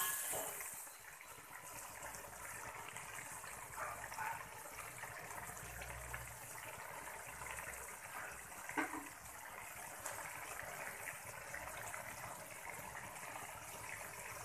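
Cassava leaves simmering in water in a wok: a steady bubbling hiss, with a sharp short sound right at the start and a few faint knocks later.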